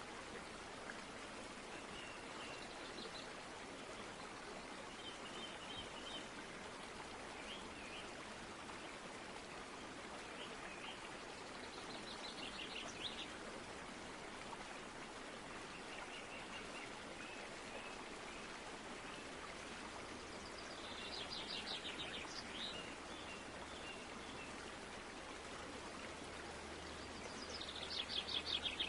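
Steady rushing noise, like running water, with birds chirping now and then and giving a few short rapid trills, the loudest near the end.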